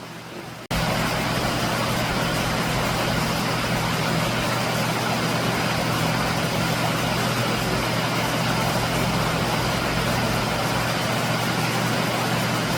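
Waterfall's steady, even rush of falling water with a deep low rumble beneath it. It jumps abruptly louder just under a second in, then holds constant.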